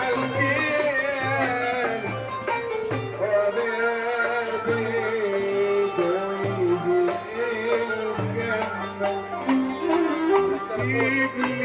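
Music in a Middle Eastern folk style: a wavering melody line over a repeating low bass pulse.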